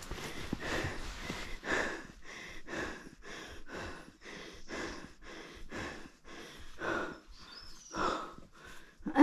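A hiker breathing hard and panting, in and out about twice a second, out of breath from the climb.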